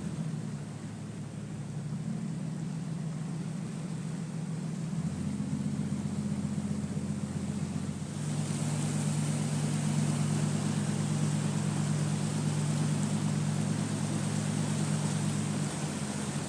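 Truck engine running steadily at low speed while driving through deep floodwater, its note changing about five seconds in and again about eight seconds in. From about eight seconds in, a louder rushing hiss of water spraying against the body joins it.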